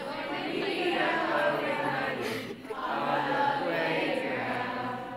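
Many voices singing a prayer together in unison, with a short break about two and a half seconds in.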